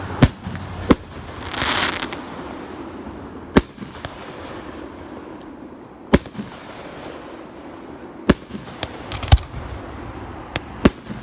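Fireworks display going off close by: a string of sharp bangs from shells bursting at irregular intervals, from under a second to a few seconds apart, with a stretch of hissing crackle about two seconds in.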